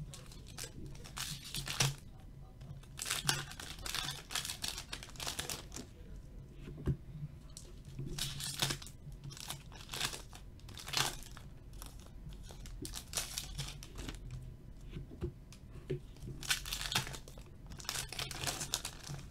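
Foil wrappers of Upper Deck Trilogy hockey card packs being torn open and crinkled by hand, in irregular rustling bursts.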